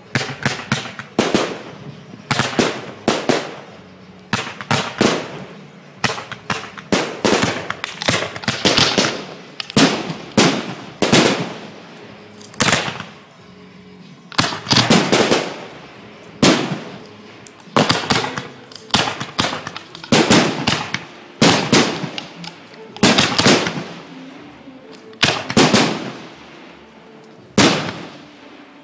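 Fireworks going off: shells bursting in quick clusters of sharp bangs and crackles, a new cluster every second or two, each bang trailing off.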